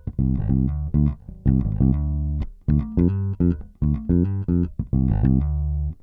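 Electric bass guitar played through a Boss OC-2 Octave pedal: a rhythmic line of short plucked notes with a deep, thick low end, stopping abruptly at the end.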